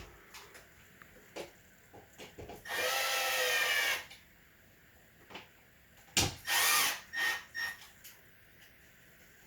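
Power drill running in two short bursts, a longer one about three seconds in and a shorter one just before seven seconds, its pitch rising as it spins up and dropping as it stops, with light clicks and knocks of handling between.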